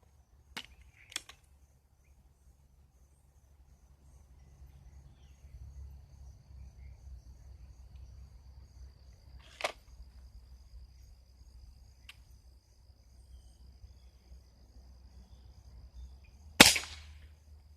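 Air rifle firing: a sharp crack near the end, the loudest sound, with a smaller sharp report about halfway through and a few faint clicks near the start.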